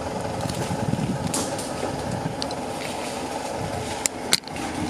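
Vehicle engine idling steadily, with two short sharp clicks a little before the end.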